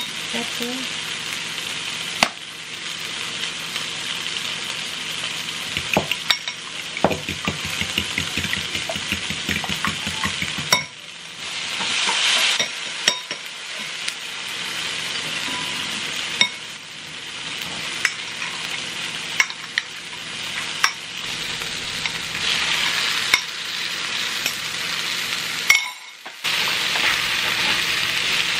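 Onions and peppers sizzling in oil in a frying pan, a steady hiss. A fork raps in quick strokes against a glass bowl as eggs are beaten, from about a quarter to a third of the way in. Near the end a wooden spoon stirs diced potatoes in the pan, and the sizzle shifts abruptly twice.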